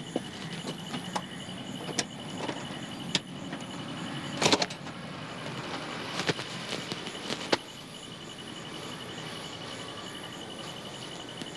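A door's lock and handle being worked: a series of separate clicks and knocks, the loudest a short rattle about four and a half seconds in, then a few more clicks before they stop at about seven and a half seconds.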